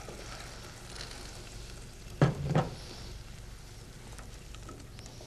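A pot of potato soup and vegetable stock sizzling softly on a gas burner as it is stirred with a spoon, with two sharp knocks a little over two seconds in.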